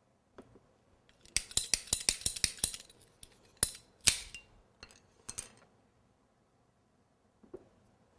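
A quick run of about a dozen sharp clicks, then three louder separate snaps, from the handling of a hard support piece being fitted into a cake.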